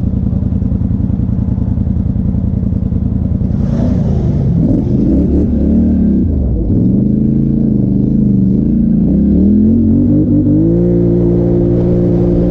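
Polaris Sportsman XP 1000 ATV's twin-cylinder engine, heard from the rider's seat while riding: running steadily at first, then revving up and down, climbing in pitch about ten seconds in and holding a higher, steady note near the end. A brief rush of noise sounds about four seconds in.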